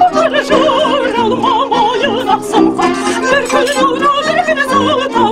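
A woman singing a traditional Kazakh song with a strong, wavering vibrato, accompanied by an accordion holding steady chords.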